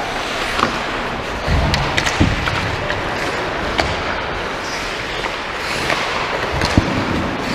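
Hockey play: sharp clacks of sticks and puck every second or so over a steady hiss, with duller low thuds about two seconds in and again near the end.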